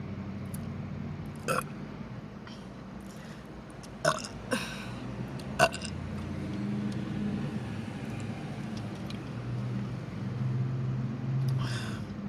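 A woman burping: a few short sharp burps or sounds in the first half, then a longer low burp near the end, over a steady low hum.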